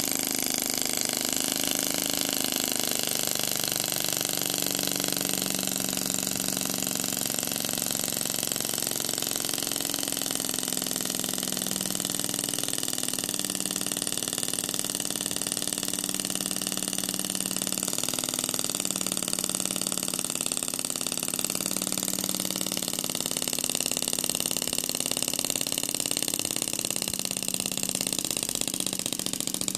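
Brown CO2 model aircraft engine running on its first test run after restoration, spinning its propeller with a steady hum over a high hiss. Its pitch wanders up and down as the speed varies.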